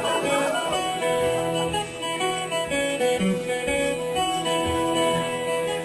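Instrumental interlude played by the performance's musicians, led by plucked string instruments such as guitar, with held notes changing through the passage.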